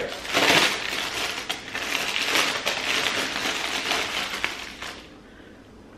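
Plastic packaging crinkling and rustling as a hair closure is handled and taken out of its bag. The crinkling stops about five seconds in.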